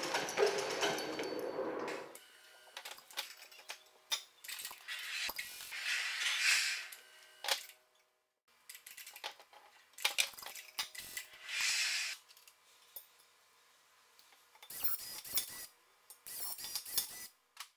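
A steady machine noise cuts off about two seconds in. Then come scattered clinks, knocks and rustling as a plastic manhole cover, hanging from a lifting magnet, is lowered into its steel frame. Near the end a rivet gun sets rivets in two short bursts, fixing a logo plate to the cover.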